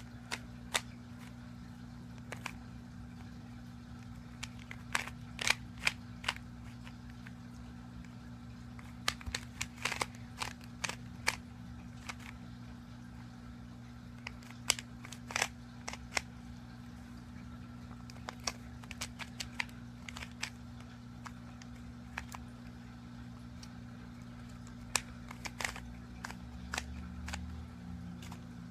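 Plastic Rubik's Cube being turned by hand: irregular sharp clicks and clacks of its layers rotating, coming in scattered clusters, over a steady low hum.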